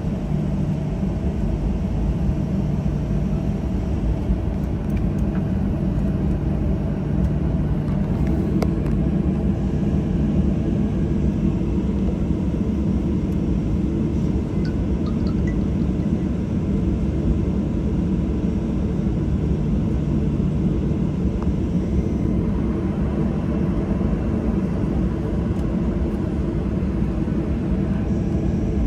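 Cabin noise inside a Boeing 737-800 taxiing after landing: a steady low rumble from the idling CFM56-7B engines and the aircraft rolling along the taxiway.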